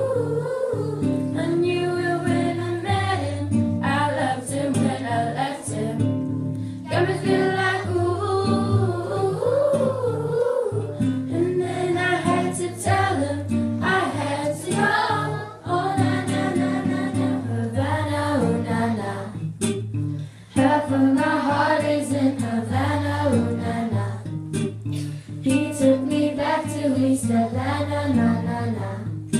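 Girls singing a pop song through microphones, accompanied by an acoustic guitar.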